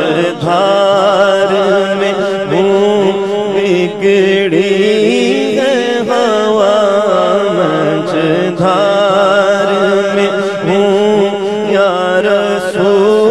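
A man's voice singing a naat unaccompanied into a microphone, holding long, wavering, ornamented notes with only brief breaks, over a steady low drone.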